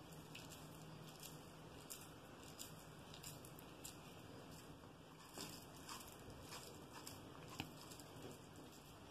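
Faint soft squishing and patting of mashed potato filling pressed and rolled between the palms into balls, with scattered light ticks and one sharper tick about two-thirds through.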